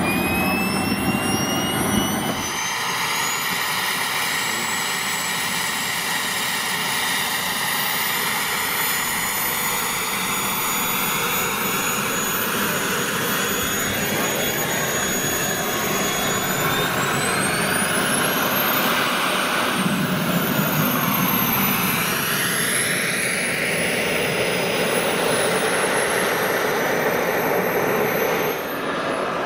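Small model-jet gas turbine (JetsMunt M210) running with a high-pitched whine over a steady rush. The whine finishes rising near the start, climbs in pitch again about two-thirds of the way through, then eases back down.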